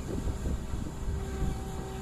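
JCB 3DX backhoe loader's diesel engine working unevenly as the backhoe arm swings back and lowers the bucket into the pit, with a steady whine coming in about a second in.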